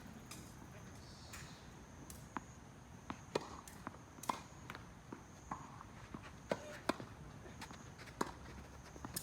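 Tennis ball being struck by rackets and bouncing on the court: about a dozen sharp knocks at irregular spacing, with a faint steady high tone underneath.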